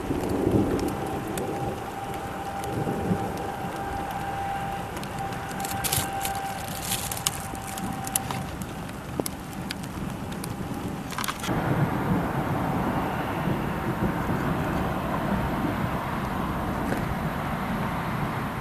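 Storm rain and wind rushing, with scattered sharp ticks of drops hitting; the rain gets heavier and louder a little past halfway.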